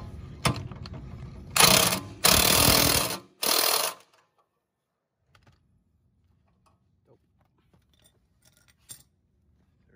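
Cordless impact wrench hammering a rear suspension arm bolt tight in three short bursts, each under a second long, then stopping. The arm is held up on a jack while the bolt is tightened, so the thread is not stripped.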